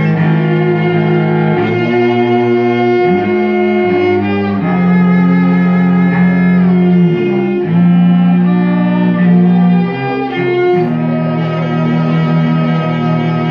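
Cello and viola playing a slow bowed duet: long held notes, the cello sustaining low notes beneath the viola's melody.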